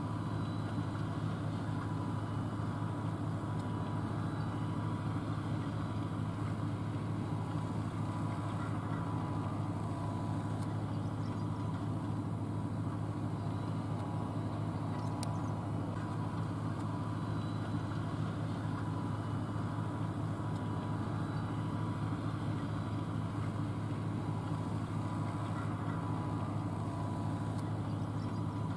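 John Deere 8R tractor's diesel engine running steadily under load as it pulls a 16-row planter, a constant low hum with no change in pitch.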